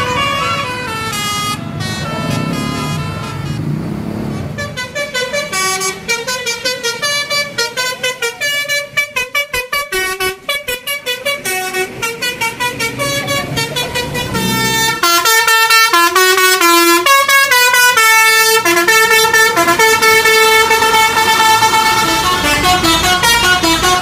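Bus 'telolet' (basuri) musical air horn playing a tune: quick runs of short toots through the middle, then louder, longer held notes in the second half.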